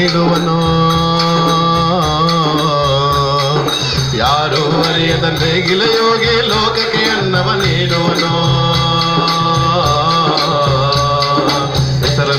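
Group singing of a Kannada devotional song, with a lead voice over the chorus. A frame drum and small hand cymbals keep a fast, steady beat.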